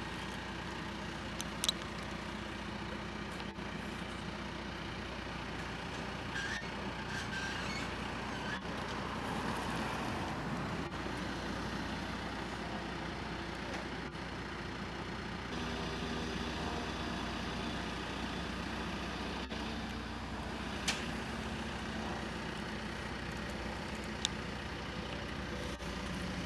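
Diesel engine of a John Deere 310SG backhoe loader running steadily under working load, with three short sharp clanks.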